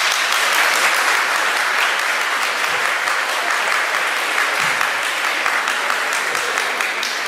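A large seated audience applauding, many hands clapping together, tapering off slightly toward the end.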